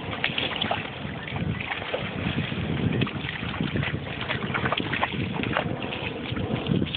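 Wind buffeting the microphone, a gusty low rumble, over water lapping and small splashes where the dogs' paws stand in the shallows.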